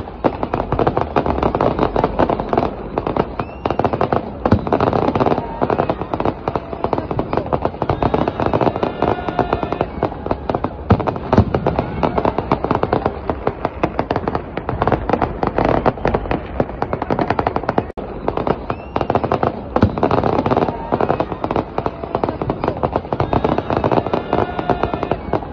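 Fireworks display: a dense, unbroken barrage of many rapid bangs from aerial shells bursting and rockets going up.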